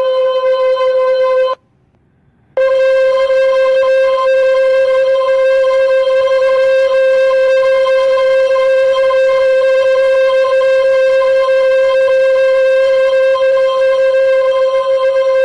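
A loud, steady, buzzy electronic tone held at one pitch, cutting out for about a second near the start and then running on unchanged.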